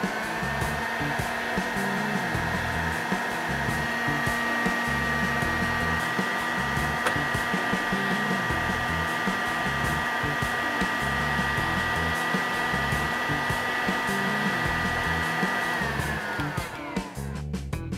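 Heat gun running steadily with a blowing rush and a high fan whine. It is switched off about 16 seconds in, and the whine falls away as the fan spins down.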